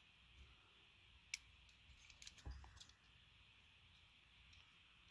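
Near silence with a few faint clicks and a soft thump as fingers handle a small diecast toy car: one sharp click about a second in, then a short cluster of small clicks and a thump halfway through.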